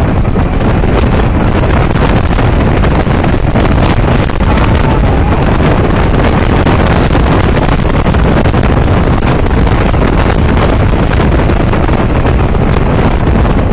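Loud, steady wind rush buffeting the microphone of a camera mounted on the outside of a moving car, with the car's road noise underneath.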